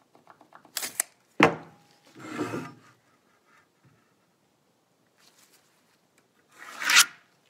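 A metal straightedge knocked and rubbed against a marine plywood boat bottom while a pencil line is marked along it: a few light clicks, one sharp knock about a second and a half in, then two scraping rubs, the louder one near the end.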